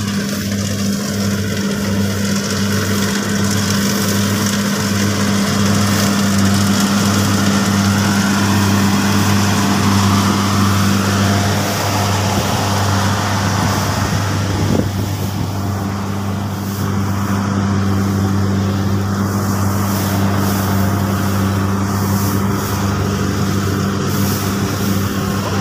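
Rice combine harvester's diesel engine running steadily at working speed, with a single brief knock about fifteen seconds in.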